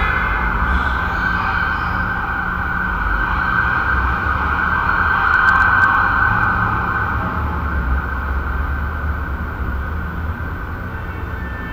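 Residential room tone: a steady low hum and rumble under a band of noise that swells to a peak about halfway through and then slowly eases off, with a few faint ticks near the peak.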